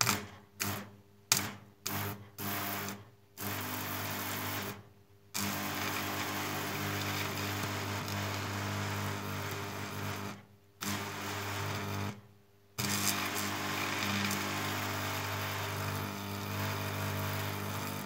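Electric arc struck between two carbon rods from batteries, fed by a stick welder at about 140 amps. It sputters in several short strikes over the first three seconds, then holds as a steady buzzing, crackling arc that briefly cuts out three times before catching again.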